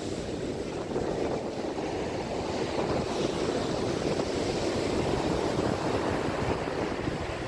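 Steady rushing of wind and ocean surf on a black-sand beach, with wind buffeting the microphone.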